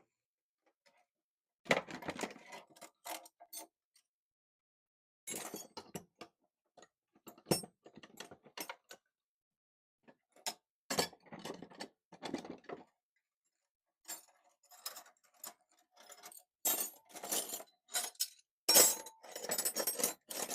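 Loose metal sockets and wrenches clinking and clattering as they are handled and dropped into a toolbox, in short bursts with pauses between, coming thicker and faster near the end.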